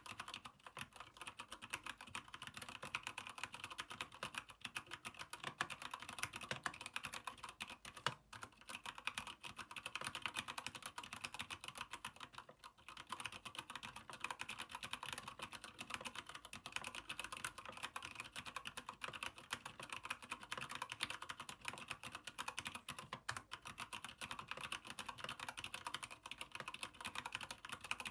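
Keychron K8 mechanical keyboard with Gateron brown switches being typed on fast and continuously, a dense stream of keystrokes with short breaks about eight and thirteen seconds in.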